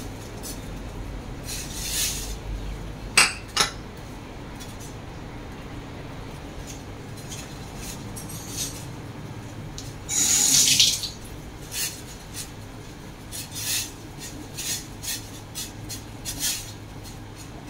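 Water boiling in a stainless steel pot, with scattered splashes and clinks as chicken legs go in and are stirred; two sharp clinks about three seconds in and a louder hissing splash about ten seconds in.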